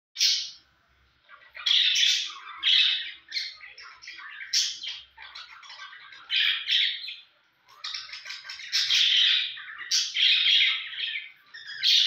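Budgerigars chattering in a run of harsh squawks and warbles, with brief pauses about a second in and again near the middle.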